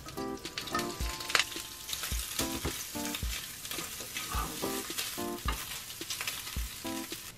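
Diced meat sizzling as it fries in a small pan, stirred with a spatula that knocks and scrapes against the pan, the sharpest knock about a second and a half in. Soft background music with a steady beat plays underneath.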